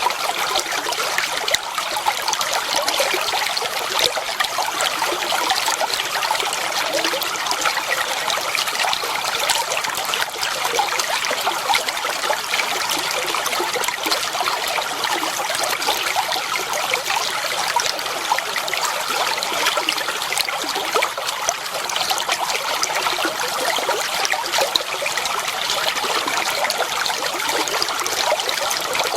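Clear water flowing and trickling, a steady babble with many small splashes.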